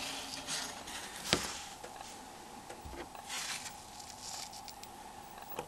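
Faint clicks and rustling of a Nokia 6300's plastic housing being handled, with one sharper click about a second and a half in. A faint steady hum sits underneath.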